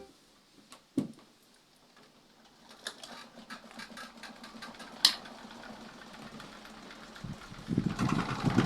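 Electric stand fan switched on with a click, its motor humming as the blades spin up with blue objects attached, making a fast mechanical clatter. A second click comes about five seconds in, and near the end the clatter becomes much louder.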